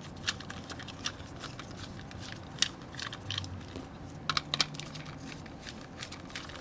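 Screwdriver turning out screws from a plastic toy excavator's body, giving small irregular clicks and ticks of the screws and plastic parts being handled.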